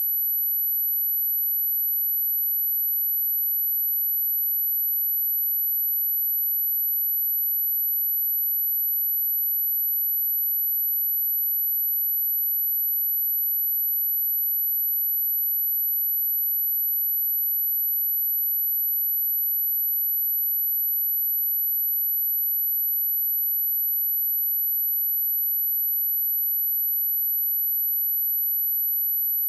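A steady, very high-pitched pure tone: an 11862 Hz sine wave played as a speaker test and speaker-cleaning tone, holding constant in pitch and level.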